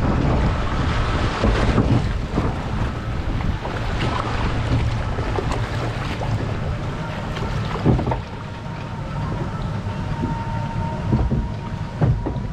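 Water rushing and splashing around a log flume boat moving along its water channel, with wind buffeting the microphone and scattered knocks.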